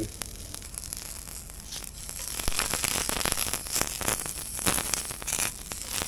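Vegetables dry-charring in a hot pan with no oil, crackling and sizzling in a dense run of pops that starts about two seconds in. Wind rumbles on the microphone throughout.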